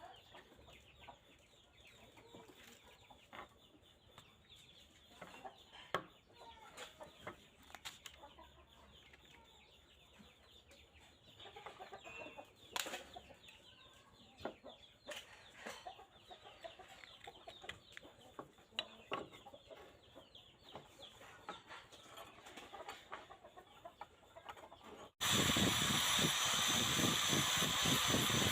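Faint scattered clicks and taps, with what sounds like chickens clucking in the background. About 25 seconds in, a much louder steady hissing noise starts abruptly.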